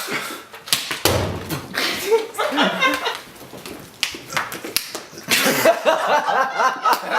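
People laughing, with a few sharp clicks and a low thump about a second in; the laughter grows near the end.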